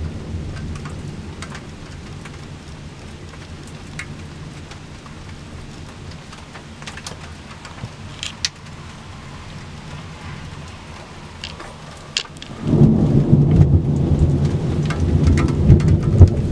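Thunderstorm: a rumble of thunder dies away, and rain patters with scattered sharp drop ticks. About thirteen seconds in, a loud, low rumble of thunder starts suddenly and runs on.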